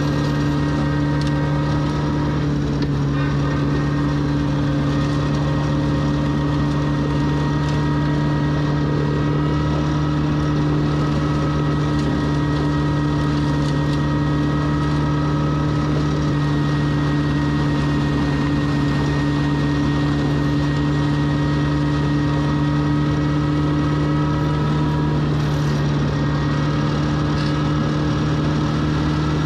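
Compact tractor engine running at steady working revs, driving a PTO-powered Teagle flail mower that is cutting long grass. The result is a loud, even drone with a constant hum that does not change in pitch.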